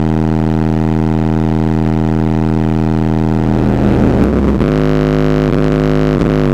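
Skar Audio ZVX-15 15-inch subwoofer driven at around 2,200 watts, playing a loud, steady low bass tone with many overtones. About four seconds in, the tone drops and begins gliding between bass notes.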